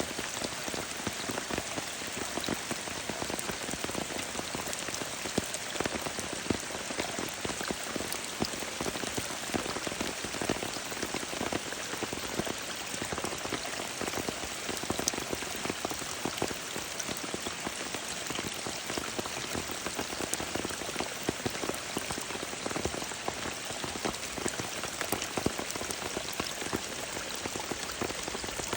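Rain falling with runoff water flowing: a steady, even hiss sprinkled with many small drop splashes and patters.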